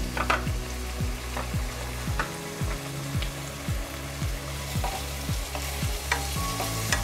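Chopped tomatoes and onions sizzling in butter in a kadai, with a few sharp knocks as a wooden spatula stirs them near the end. Background music with a steady low beat runs underneath.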